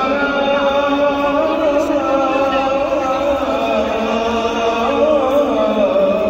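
A single voice chanting a slow, ornamented melody in long held notes that waver and turn in pitch, in the style of Islamic chanting such as the call to prayer or Quran recitation.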